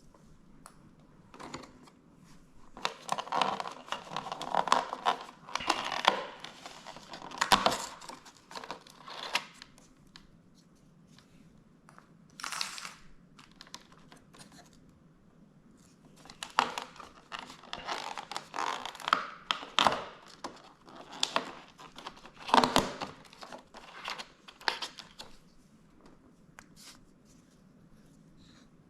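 Cardboard and paper packaging of a coffee-capsule advent calendar being torn and crinkled, with small clicks and knocks as pieces are handled. It comes in two bouts with a short tearing rip between them.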